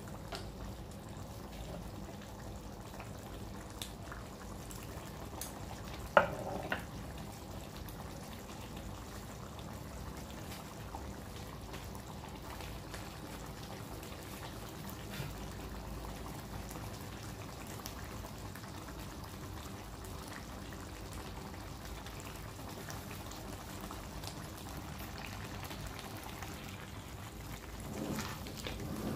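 Pork dinuguan stew simmering in a wide metal pan, the thick blood sauce bubbling with a steady hiss and faint scattered pops. A single sharp knock about six seconds in, and a wooden spatula stirring through the stew near the end.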